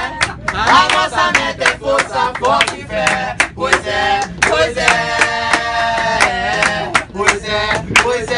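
Several voices singing a funk chant together, with hand claps keeping the beat throughout.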